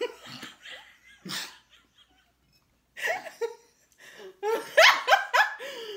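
A woman laughing: breathy laughs at first, then a louder run of quick laughs about four and a half seconds in.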